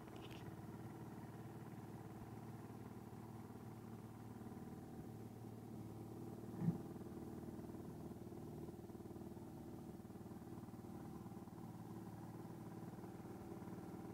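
Small boat outboard motor running at a steady speed, with one short knock about halfway through.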